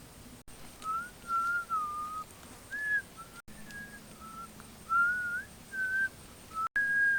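A whistled tune: short pure notes sliding up and down, with a long held note near the end. The whistling is broken by three brief gaps of total silence.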